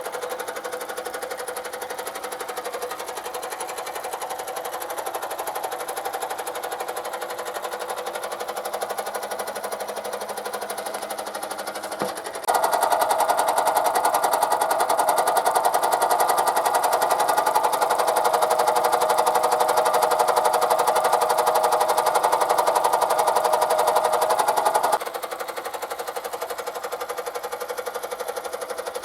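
Small toy steam engine of a vintage tin steamboat running, a fast, even mechanical chatter; about twelve seconds in it jumps abruptly louder after a click and drops back just as suddenly near the end.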